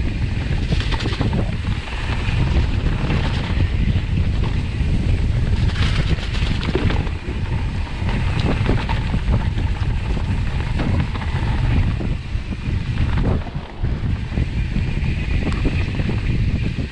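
Wind buffeting the microphone as a mountain bike descends at speed over a dirt trail, with the tyres rumbling on the ground and frequent short clicks and rattles from the bike over bumps.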